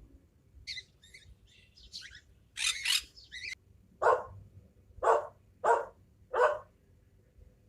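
A bird chirping in quick, high calls, followed by a dog barking four times, about once a second.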